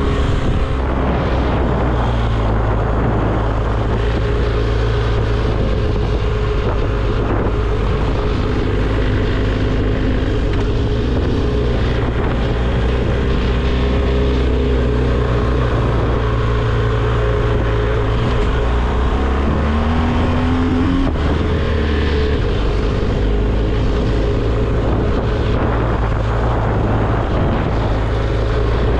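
BMW R 1250 GS Adventure's boxer twin engine running steadily as the motorcycle rides along a dirt road, with wind noise on the microphone. The engine note briefly rises about two-thirds of the way through.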